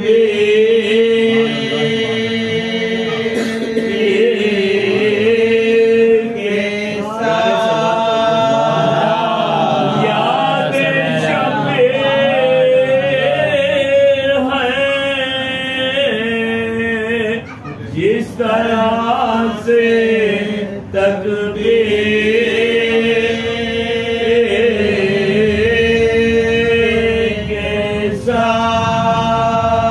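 A group of men chanting a Shia Muharram lament without instruments: a lead voice carries the melody while the others hold long sustained notes beneath it.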